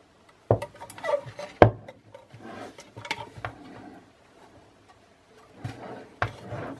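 Hands handling the bench grinder and its packaging: a few sharp knocks and clatters, with scraping and rustling in between. No motor is running.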